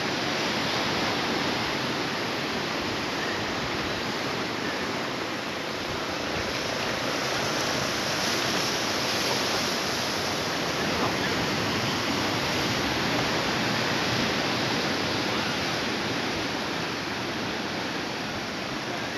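Sea surf washing against a rocky shore: a steady rushing noise with no distinct breaks.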